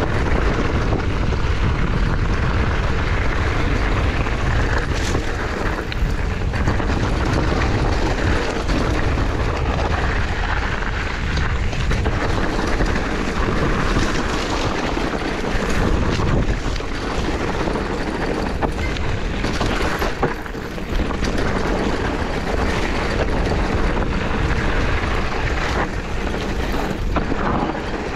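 Wind buffeting the bike-mounted camera's microphone and mountain bike tyres rolling over a dirt singletrack, with scattered knocks and rattles from bumps in the trail. Around the middle, brush scrapes against the handlebars and bike.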